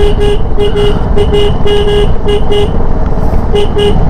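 Motorcycle on the move, its engine and heavy wind noise on the mic, with the horn tapped in a quick irregular string of short beeps. The beeps pause for about a second before two more near the end.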